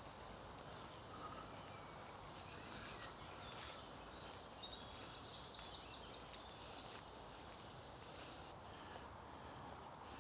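Faint woodland birdsong: several songbirds chirping and whistling, with a rapid trill about halfway through, over a soft low hiss.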